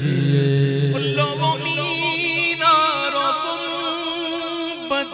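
Unaccompanied male naat singing. For about the first second a low, steady hummed drone from a backing singer carries under the last word. The lead voice then holds a long, ornamented melisma with heavy vibrato.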